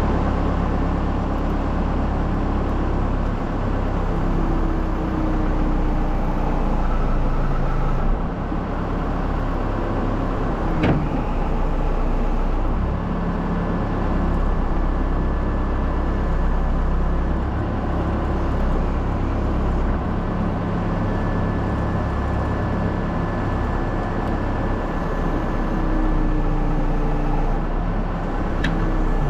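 Backhoe's diesel engine running steadily while its hydraulics move the boom and bucket. A single sharp knock comes about 11 seconds in, and a thin steady whine joins about halfway through.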